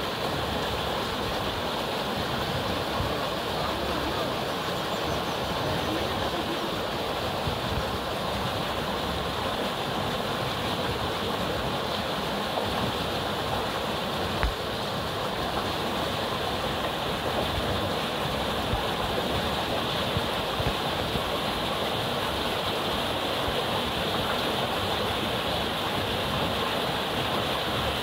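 Steady rushing of fast-flowing river water, with a single brief knock about halfway through.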